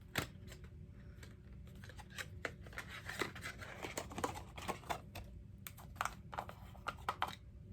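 Cosmetic product packaging being handled and opened: a run of sharp clicks and taps, with crinkling, rustling handling noise thickest in the middle, stopping shortly before the end.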